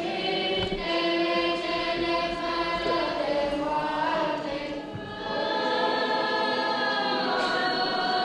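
Choir singing an Orthodox liturgical chant in long, held notes, with a new phrase starting about five seconds in.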